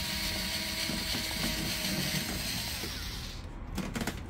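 Cordless electric screwdriver whirring steadily as it backs out a screw from the rear motor cover of a Sharp stand fan, stopping after about three seconds; a few light clicks follow near the end.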